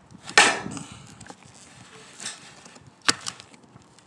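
Metal snips cutting off the plastic nozzle tip of a caulk tube to widen the opening: one loud crisp snip about half a second in, then a fainter snip and a sharp click around two and three seconds in.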